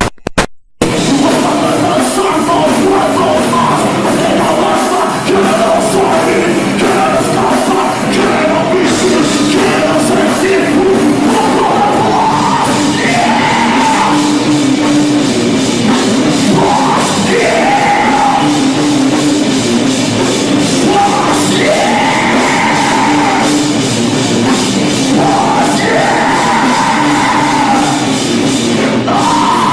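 A rock-funk band playing loud full-band music on drums, bass and electric guitar, starting about half a second in, with a melodic line coming in over it about midway.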